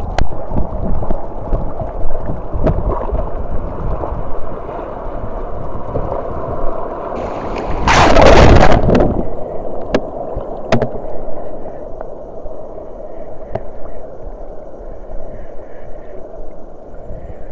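Sea water sloshing and swashing around a wading angler's action camera in the surf. About eight seconds in, a wave washes over the camera in a loud rushing splash lasting about a second, followed by a few sharp clicks.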